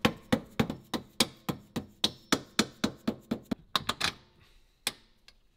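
A hammer tapping rapidly and evenly on metal, about three sharp blows a second, knocking a billet aluminium cross member into place. The blows stop about four seconds in and are followed by one more.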